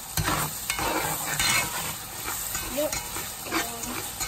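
Tomato paste frying in hot oil, sizzling steadily, while a spatula stirs it round a metal pot with several short scraping strokes. It is being fried down until the oil separates out.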